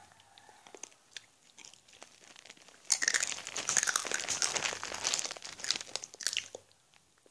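Satin ribbon crumpled and rustled in the hand close to the microphone: a dense crinkling crackle that starts suddenly about three seconds in and lasts about three and a half seconds, after a few faint scattered ticks.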